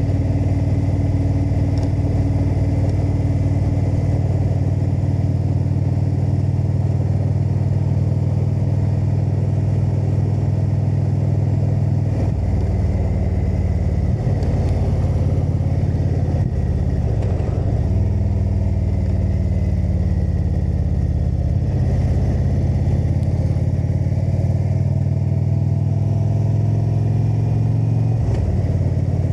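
Indian Super Chief Limited's V-twin engine with Rush exhaust running under way; the engine note drops and climbs again several times as the rider works the throttle.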